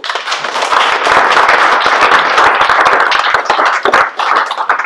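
A roomful of people applauding loudly: dense hand-clapping.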